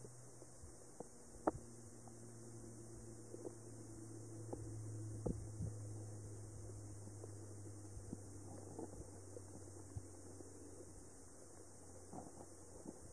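Faint underwater recording ambience: a steady low hum with small clicks and ticks scattered through it. A sharper click comes about a second and a half in, and another about five seconds in.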